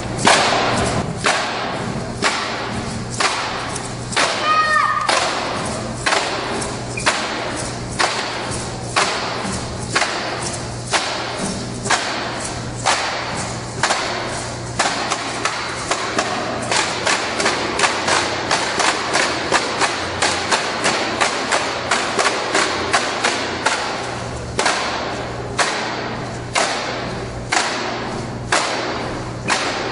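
Stomp-style percussion: several performers beating buckets by hand in unison, sharp hits at a steady pulse of about two a second, growing busier in the middle and sparser again near the end. A steady low hum runs beneath.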